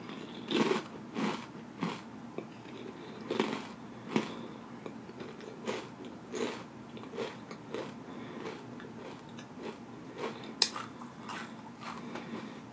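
Close-miked chewing and lip smacking on a mouthful of Paqui Haunted Ghost Pepper tortilla chips: irregular wet smacks, roughly one every half second to second, with one sharper click late on.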